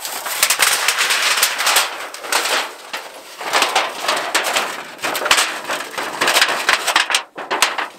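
Thin metal sheet of a roll-up tent-stove chimney being unrolled and handled into a pipe: a continuous crinkling, crackling rattle with many sharp clicks.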